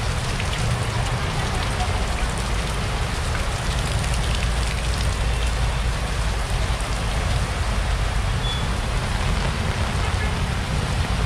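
Heavy typhoon rain pouring steadily onto a flooded street and stall coverings, an even, unbroken downpour with a deep rumble beneath it.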